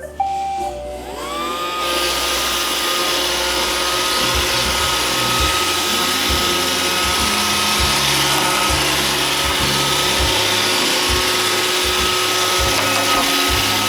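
iRobot Roomba 561 robot vacuum starting a cleaning run: a short tone, then its brush and vacuum motors spin up with a rising whine over the first two seconds and run on steadily with a whirring hum.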